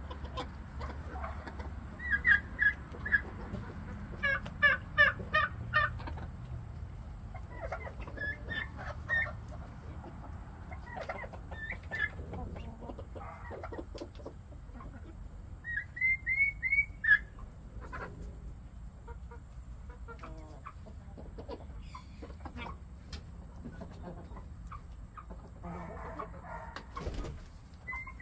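Chickens clucking: short runs of quick, pitched calls every few seconds, over a steady low rumble.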